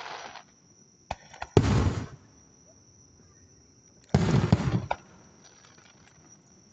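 Aerial firework shells bursting: two loud booms about two and a half seconds apart, the second a quick cluster of reports, with a couple of sharp small pops just before the first. A steady high-pitched trill runs underneath.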